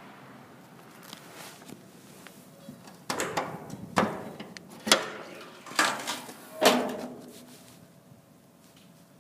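Latch and door of an aluminum trailer tool box being worked open by hand: five sharp metallic clacks about a second apart. The thin aluminum door rings briefly after the last one.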